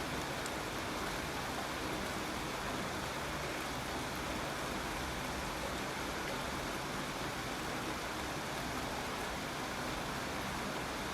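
Steady, even rain hiss with no single drops standing out.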